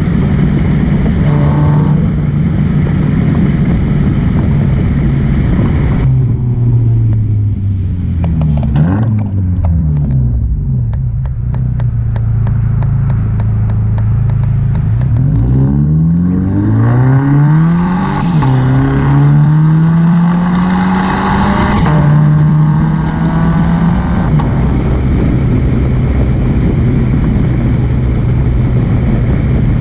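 Scion FR-S's 2.0-litre flat-four boxer engine through a catless, non-resonated straight-pipe exhaust, under way. The note holds steady, falls as the driver lifts off, and gives a rapid run of exhaust crackles on the overrun. It then rises through two gears under acceleration and settles back to a steady cruise.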